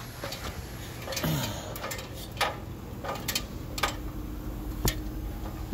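Pioneer mini split outdoor unit running just after start-up: a low steady hum with a faint steady tone coming in about halfway, under a scatter of irregular sharp clicks and ticks.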